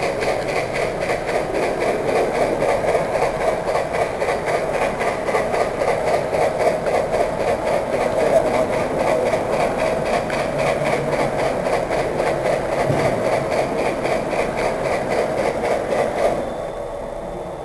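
Model train running along the layout track: a steady mechanical running noise with a rapid, even ticking. About two seconds before the end it drops away as the train comes to a stop.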